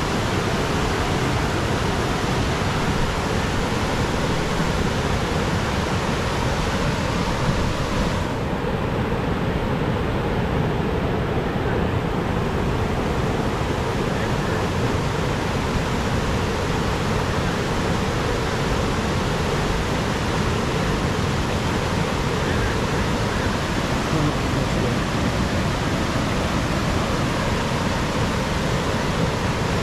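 Steady rushing roar of a waterfall. The high hiss dulls for a few seconds about eight seconds in.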